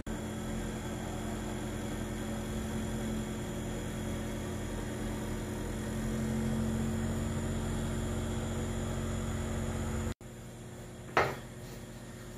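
A steady mechanical hum with a low pitched drone, like a fan motor running. It cuts off about ten seconds in, leaving quieter room tone, and there is a single short click shortly after.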